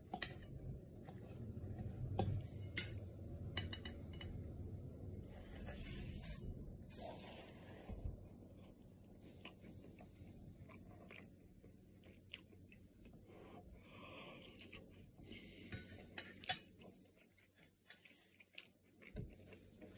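Utensil clicking and scraping against the pot pie and its tray as the pie is dug into, a scatter of small clicks.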